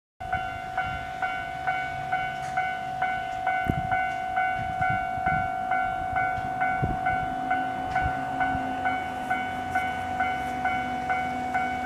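Japanese railway level-crossing alarm ringing: an electronic bell tone struck about twice a second in a steady, even rhythm, with occasional low thumps and rumble underneath.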